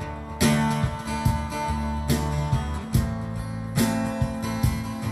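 Acoustic guitar strumming an instrumental passage over a slow, steady drum machine beat with sustained bass notes.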